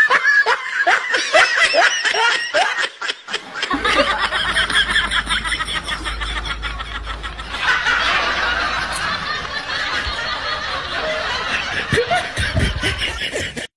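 Laughter: a quick run of repeated laughs for about three seconds, then denser, overlapping laughter over a low rumble from about four seconds in.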